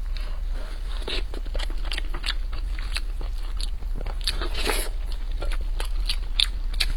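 Close-miked eating of mapo tofu over rice: irregular wet chewing and mouth smacks. A steady low hum runs underneath.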